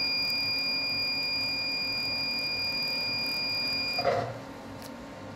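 A medical laser's steady, high-pitched emission tone sounds while the laser burns off a seborrheic keratosis, cutting off about four seconds in. A short blip follows, the loudest moment, over a low steady machine hum.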